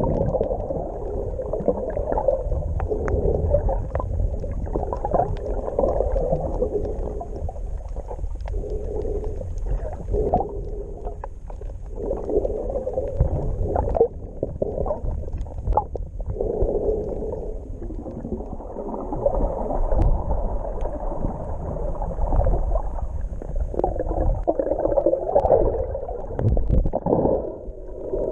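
Muffled underwater sound picked up by a camera held below the surface: swishing, gurgling water movement that swells and fades, with scattered sharp clicks.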